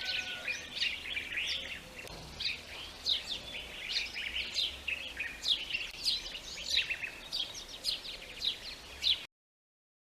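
Many small birds chirping at once, a dense chorus of short overlapping calls; it cuts off suddenly about nine seconds in.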